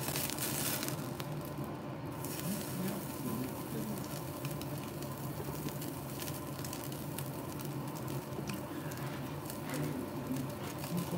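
Thin slice of wagyu beef sizzling on the wire mesh of a tabletop yakiniku grill, fat spitting in a fine, steady crackle, over a steady low hum from the overhead smoke extractor.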